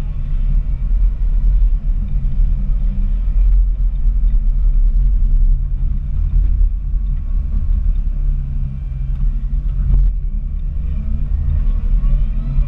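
Komatsu WA270 wheel loader's diesel engine and drivetrain running steadily under load while pushing snow, a heavy low rumble. There is one sharp knock about ten seconds in, and a whine rises in pitch near the end as the machine speeds up.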